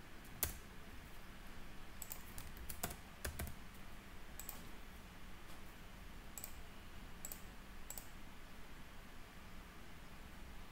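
Scattered computer keyboard keystrokes and mouse clicks, a few in quick succession about two to three seconds in, then single clicks spaced out, over a faint steady hum.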